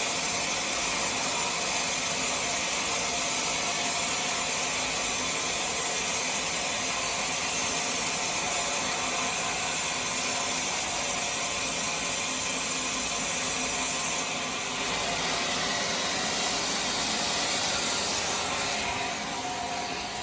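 A motor running steadily with a hissing whir; it drops a little in level about fourteen seconds in and again near the end.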